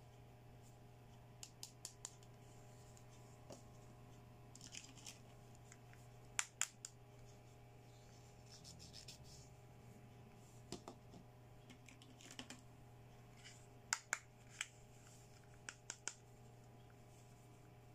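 Small pink plastic doll hair accessories (toy combs, toy hair dryer, hand mirror) being handled: scattered light plastic clicks and taps, a few in quick succession, with short scratchy rustles in between.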